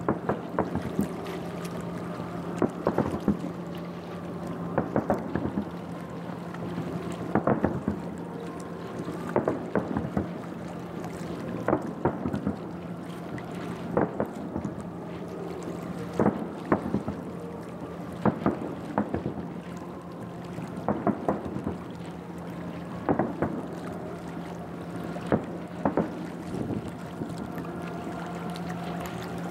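Fireworks shells bursting in the distance, with a sharp crack or a short cluster of cracks about every two seconds, over a steady low hum.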